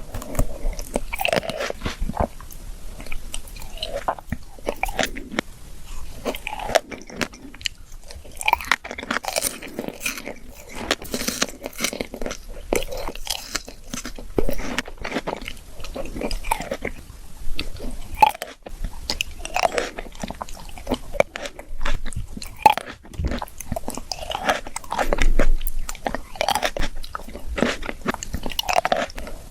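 Close-miked biting and chewing of fresh fruit: repeated crunchy bites followed by wet chewing, irregular and continuous.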